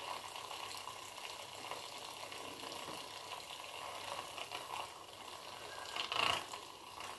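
Small handheld battery whisk running steadily in a cup of oil, mixing in musk to dissolve it, with a brief louder scrape about six seconds in; it stops at the end.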